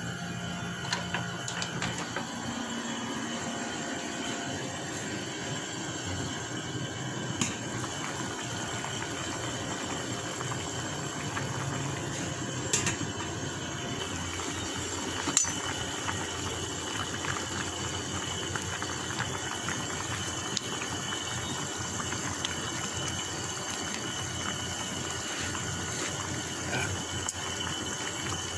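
Pot of chicken tinola soup boiling on the stove: a steady bubbling hiss, with a few faint clicks along the way.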